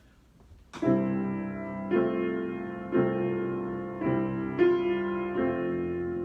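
Piano improvisation: slow, sustained chords struck about once a second, each ringing and fading into the next, beginning just under a second in.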